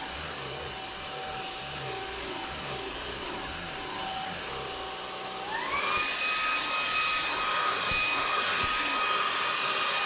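Hoover H-Free 500 cordless stick vacuum running with its pet hair head, sucking long dog hair off a fabric chair: a steady motor whine with a rushing hiss. About halfway through the motor speeds up to a higher, louder whine.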